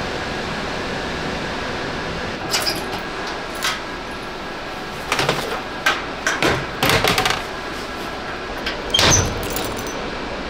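Metal locker door being opened and a key worked in its lock: a run of sharp metallic clicks, clanks and a jingle of keys over a steady background hiss, busiest in the middle and loudest a little after nine seconds in.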